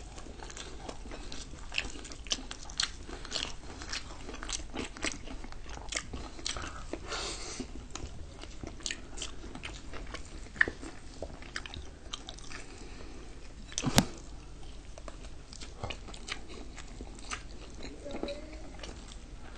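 Crunching bites and chewing of crispy KFC fried chicken: a steady run of small crisp crackles of the breading between chews, with one much louder sharp click about fourteen seconds in.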